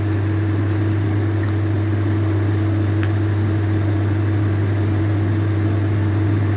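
A steady low hum with an even hiss, like a motor or fan running, unchanged throughout, with a faint click about three seconds in.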